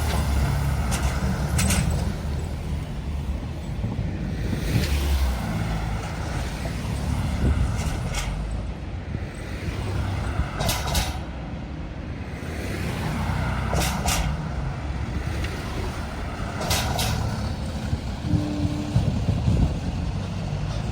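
Road traffic: motor vehicles passing with a steady low rumble, broken by about five short, sharp hisses spread through.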